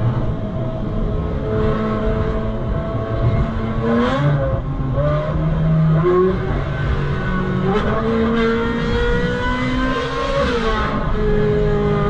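Ferrari 458 Spider's 4.5-litre naturally aspirated V8 on the move, its pitch climbing under throttle and dropping back several times, with the sharpest rises about four seconds in and again near eight and ten seconds, over a steady low rumble.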